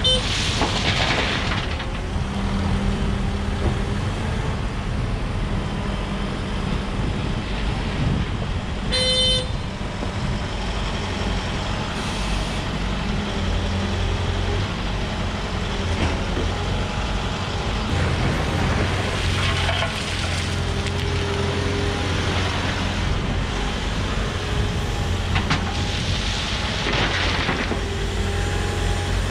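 Wheeled excavator's diesel engine running steadily under working load, a low drone. A short horn-like toot sounds about nine seconds in.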